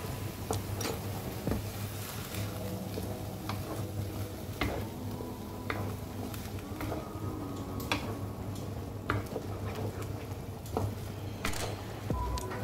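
Minced meat and tomato purée sizzling in a frying pan while a wooden spatula stirs and scrapes through it, with irregular clicks as the spatula knocks against the pan.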